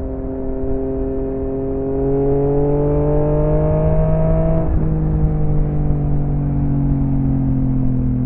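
Yamaha XSR900's three-cylinder engine through an M4 exhaust while riding: the engine note climbs steadily under acceleration, breaks sharply about four and a half seconds in as it shifts up a gear, then runs on at a steady, slowly easing pitch.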